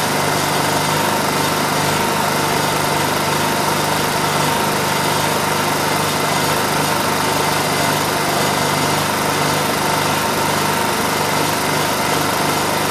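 Honda EU2000i inverter generator's small single-cylinder four-stroke engine running steadily on propane fed through a regulator, with an even, unchanging hum.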